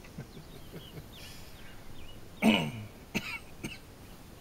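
A person coughs once, loudly, about halfway through, followed by two short sharp sounds. Faint bird chirps sound in the background.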